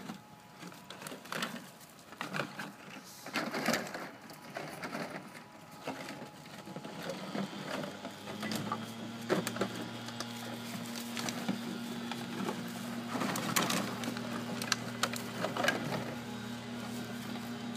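Empty plastic bottles clattering and crinkling in scattered knocks and crackles as puppies scramble among them in a plastic wading pool. About halfway through, a steady low mechanical hum sets in and continues.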